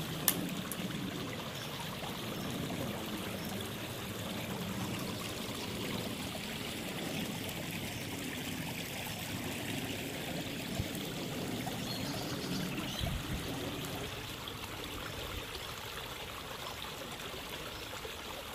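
Small woodland stream running steadily, its water trickling and splashing over a low step of fallen branches and leaf debris.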